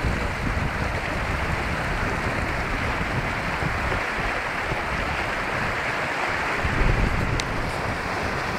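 Wind buffeting the microphone and water rushing along the hull of a sailing yacht under way: a steady rush with a heavier gust of low rumble about seven seconds in.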